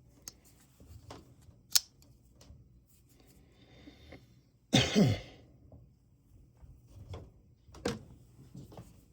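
A few sharp clicks from handling a folding knife, and a throat clearing about halfway through that is the loudest sound.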